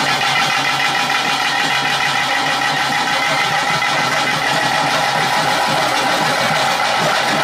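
Loud, unbroken traditional ritual music for a bhuta kola, a dense and steady texture with no pauses.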